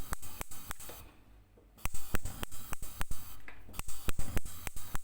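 A rapid, irregular run of sharp clicks and taps, several a second, with a short pause about a second in.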